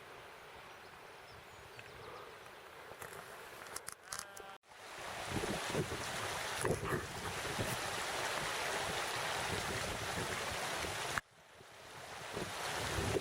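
Rushing water of a mountain stream, a steady hiss. It is fainter for the first few seconds, then becomes suddenly louder about four and a half seconds in. It cuts out briefly near the end and swells back.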